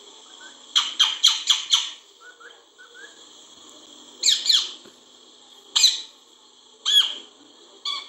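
Rose-ringed parakeet calling: a quick run of five short calls about a second in, a few soft chirps, then single squawks that slide downward in pitch, spread through the rest.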